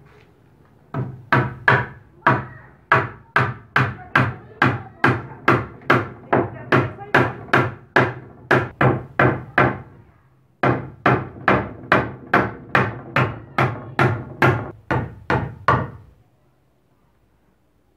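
Hammer driving nails through a wooden batten into eucalyptus props: steady hammer blows, about two or three a second. The blows pause briefly near the middle, resume, and stop a couple of seconds before the end.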